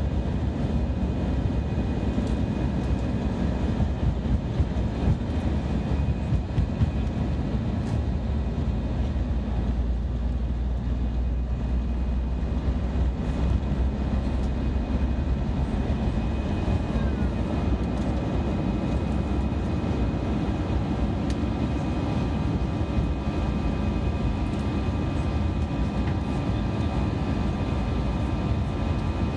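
Airbus A320 engines at takeoff thrust heard from inside the cabin: a loud, steady rumble with faint steady whining tones over it, and jolts from the wheels on the runway during the takeoff roll. The aircraft lifts off in the second half.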